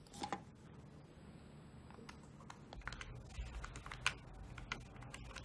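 Buttons on a cordless phone handset's keypad being pressed to dial a number: a series of faint clicks at an uneven pace.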